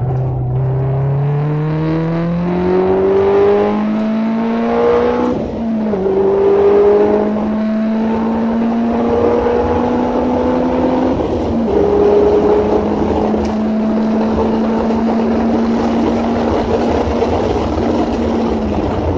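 2007 Subaru Impreza's flat-four boxer engine at full throttle from inside the cabin, accelerating hard from about 64 to 193 km/h. The note climbs in pitch, drops sharply at two upshifts about five and eleven seconds in, then climbs slowly again under wind and tyre noise. It falls away near the end as the driver lifts off for the next corner.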